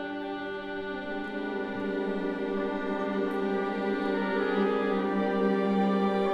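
Symphony orchestra playing film-score music: a slow passage of held chords in strings and brass that swells gradually louder.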